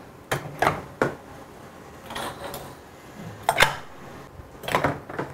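Metal gas-stove burners being put into a tub of soapy water, clinking and knocking against the submerged metal grates and the tub a handful of times.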